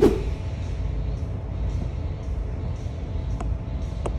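Steady low rumble, with one sharp knock right at the start and a couple of faint ticks near the end.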